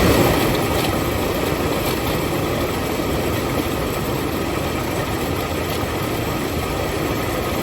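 2007 Toyota RAV4 engine idling steadily just after starting, slightly louder for the first moment, with the noise of a failing water pump whose pulley wobbles a lot.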